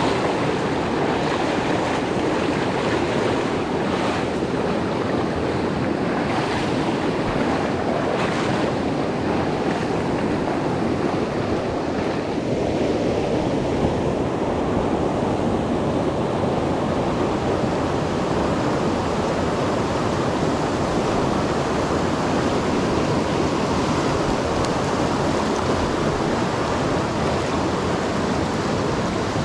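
Rushing water of a rocky mountain trout stream, a steady close rush of riffles and whitewater pouring over stones.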